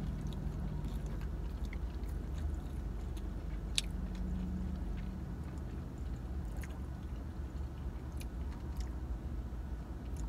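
People chewing mouthfuls of steak burger, with a few faint wet mouth clicks scattered through, over a steady low rumble of the car cabin.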